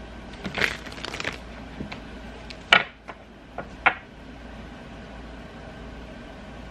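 Tarot cards being handled on a table: a quick run of light taps and rustles in the first second or so, then two sharp clicks, near three and four seconds in, over a steady low room hum.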